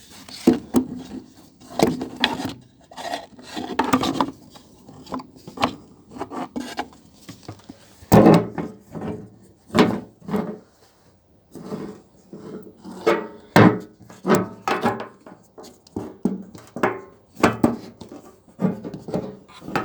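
Wood rubbing, scraping and knocking in irregular short bursts as timber parts of the pedalboard assembly are handled and shifted.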